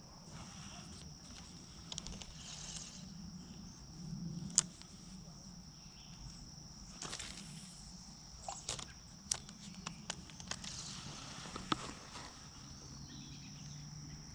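Steady high drone of insects over quiet pond-side ambience, broken by a few sharp light clicks and rustles, the loudest about four and a half seconds in.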